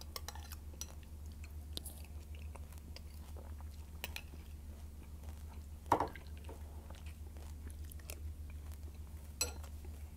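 Close-up chewing and crunching of Vector cereal in milk, with small wet clicks, and the metal spoon clicking against the bowl, loudest about six seconds in. A steady low hum from a washing machine runs underneath.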